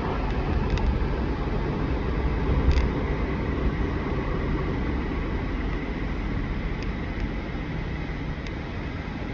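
Steady low rumbling noise with a hiss over it, and a brief knock about three seconds in.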